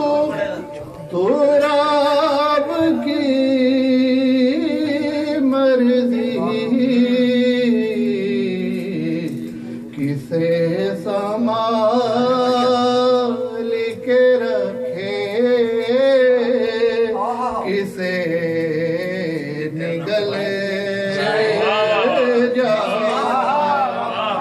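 A man singing devotional Urdu verse in praise of Imam Ali in long, wavering, ornamented phrases, with brief pauses for breath.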